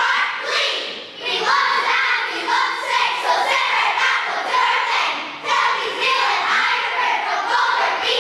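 A large choir of primary-school children singing together, with short breaks between phrases about a second in and again past the middle.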